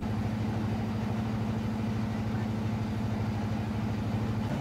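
A passenger boat's engine running steadily with a low, even hum, heard from on board.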